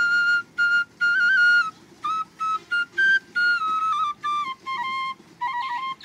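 Background music: a solo flute playing a melody in short phrases, stepping between notes, with brief gaps between phrases.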